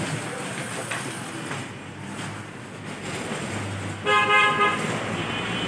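A vehicle horn honks once, a short steady blast lasting about half a second, about four seconds in, over steady background noise.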